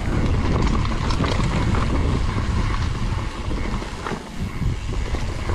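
Wind rushing over the camera microphone of a mountain bike descending a trail, with the tyres and bike giving scattered clicks and knocks over rough ground.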